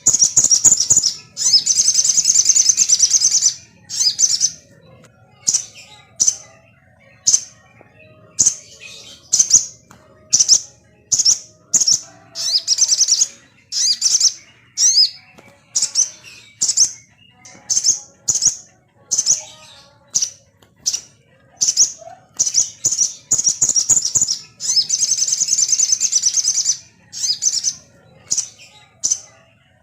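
Sogon songbird calling: short, high, harsh chattering phrases about once a second, with longer runs of chatter at the start and again about 25 seconds in. It is a lure call meant to make a caged sogon agitated and sing.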